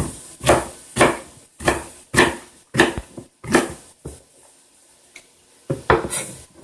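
Knife chopping celery on a cutting board: about seven even chops, roughly two a second, then a pause and a few more chops near the end.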